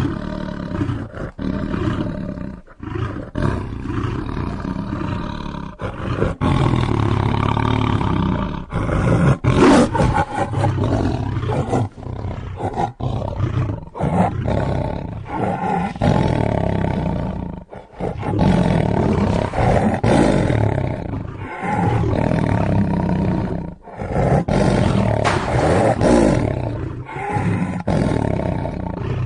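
Big-cat roars, most likely a lion, as a sound effect: a long series of loud, rough roars and growls, one after another with short breaks between them.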